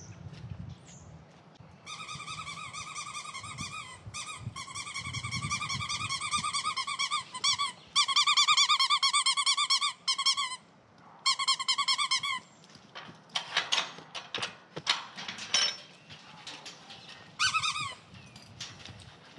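Young dog whining: a long, high-pitched, rapidly wavering whine broken by short pauses over several seconds. Then a run of sharp clicks and rattles, and one more short whine near the end.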